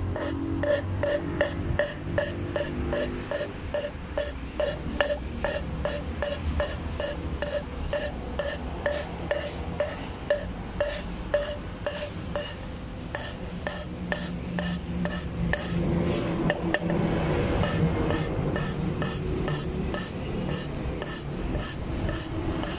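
Engine valve being hand-lapped into its seat in an aluminium cylinder head with a suction-cup lapping stick spun back and forth, giving a short squeaky grinding sound on each stroke, about two a second. The strokes thin out for a few seconds past the middle, over a low steady hum.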